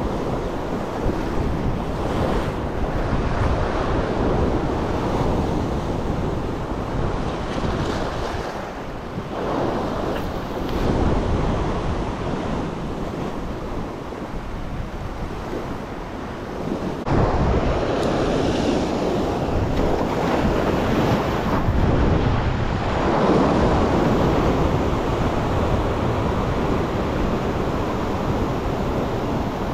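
Ocean swell surging and washing white water over a rock ledge, rising and falling in waves. The largest wash comes in abruptly a little past halfway. Wind buffets the microphone.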